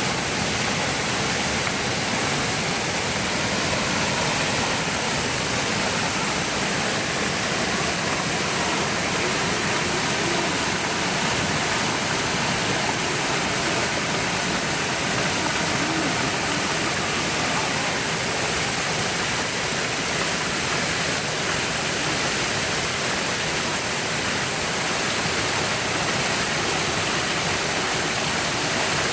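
Shiraito Falls, where groundwater spills in hundreds of thin white strands over a wide rock arch: a steady rush of falling water.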